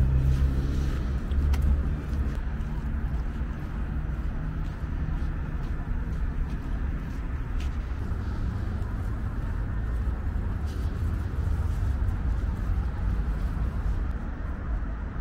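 Road traffic on a busy multi-lane city street: a steady rumble of passing vehicles, with a low engine hum from a nearby vehicle in the first couple of seconds.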